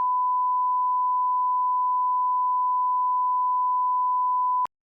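A steady 1 kHz sine test tone, the line-up tone placed at the head of a broadcast commercial master. It holds one pitch at constant level and cuts off with a click near the end.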